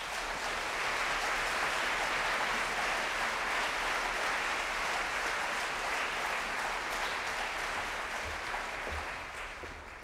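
Audience applauding steadily, the clapping building at the start and dying away over the last couple of seconds.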